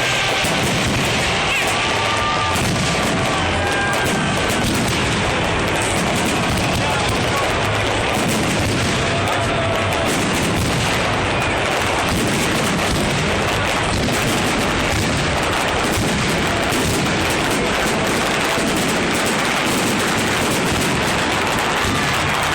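Fireworks display: a dense, continuous barrage of popping and crackling shell bursts with no let-up.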